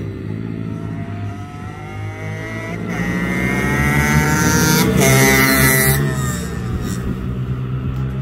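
Racing motorcycle engine accelerating past at high revs: its pitch climbs as it approaches, is loudest about five seconds in, then drops as it goes away. A steady low drone runs underneath.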